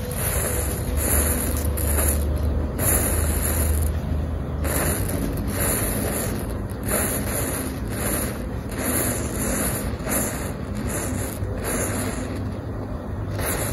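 Wind buffeting an outdoor microphone: a steady low rumble with gusty rushing swells.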